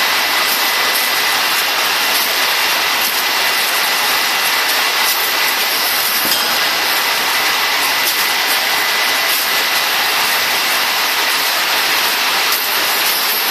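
Bag-drop case packing machine running steadily, with its conveyor belts and drives in motion: an even, unbroken machine noise with a thin steady whine.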